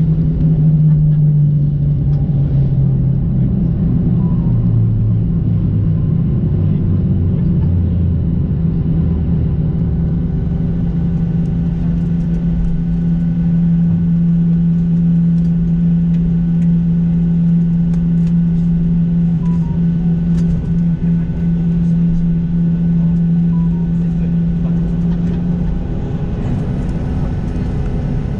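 Boeing 737-800's CFM56 jet engines heard from inside the cabin over the wing during the landing rollout: a loud engine hum falls in pitch over the first several seconds as the engines wind down, then a steady drone continues as the jet slows and taxis, with its hum cutting off near the end.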